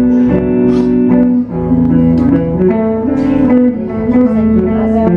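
Recorded country song playing an instrumental passage between vocal lines, led by guitar over bass.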